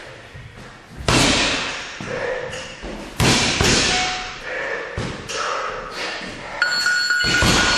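Boxing gloves landing punches on a hanging bag: loud, heavy thuds every second or two that ring on in a large room. Near the end a steady high tone starts.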